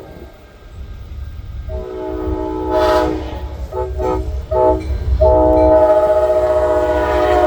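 Locomotive's multi-note air horn sounding a chord: one long blast, a few short blasts, then another long blast, over the low rumble of the approaching train.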